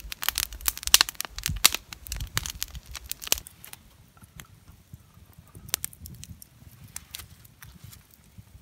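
Wood campfire crackling and popping with sharp snaps, busy for the first few seconds, then thinning to scattered pops.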